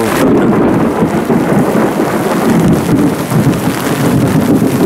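Thunder rumbling after a lightning flash: it comes in suddenly and lasts nearly five seconds before easing off near the end, over steady rain.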